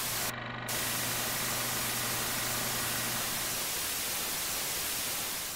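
Steady static hiss like an untuned television, part of a glitch transition, fading out near the end.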